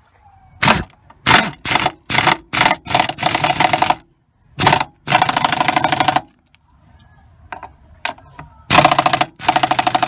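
Pneumatic impact wrench with a socket on an extension, driving a seat-belt bolt in. It fires in quick short trigger blips, then longer runs of rapid hammering about three and five seconds in, a pause of about two seconds, and two more runs near the end.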